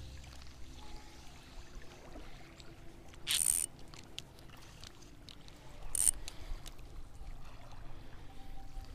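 Faint water sounds, with two short hissing swishes about three and six seconds in.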